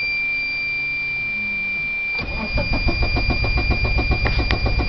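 Geo Metro being started: a steady high warning tone from the dashboard sounds throughout while a faint hum runs for the first two seconds. About two seconds in, the starter begins cranking the engine in an even, repeating rhythm.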